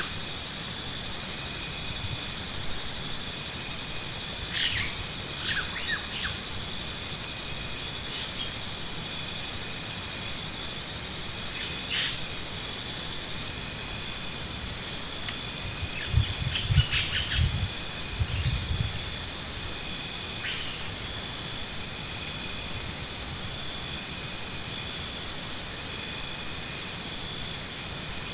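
High-pitched insect-like trilling that comes in bouts of a few seconds with short pauses between, over a steady high whine, with a few brief chirps scattered through.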